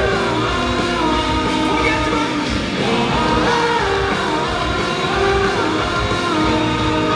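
Live rock band playing loudly, with guitars, bass and drums under a sung vocal melody.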